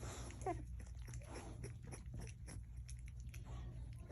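Puppy giving one short falling whine about half a second in, then a run of small clicks and crunches of it chewing.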